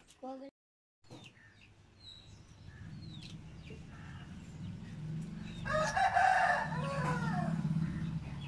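A rooster crows once, about six seconds in: one long call of over a second, the loudest sound here. Faint small-bird chirps and a low steady hum lie underneath.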